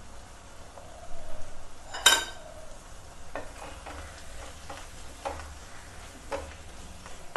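Wooden spatula stirring soya granules into a sizzling spinach and tomato curry in a nonstick pan. About two seconds in there is one sharp ringing knock against the pan, followed by short scraping strokes roughly once a second.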